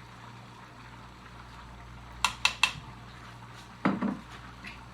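A metal kitchen utensil clinks three times in quick succession against cookware, with a brief ring, then a duller knock as something is set down, over a low steady hum.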